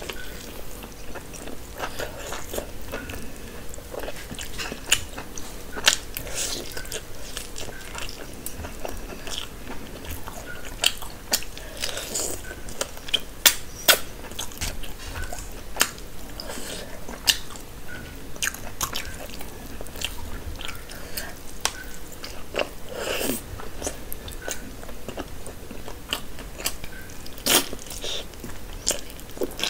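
Close-up mouth sounds of someone eating curried meat by hand: biting and wet chewing, with many sharp clicks and smacks.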